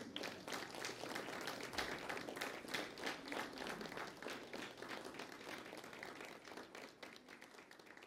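Audience applauding, the clapping dying down gradually over the last few seconds.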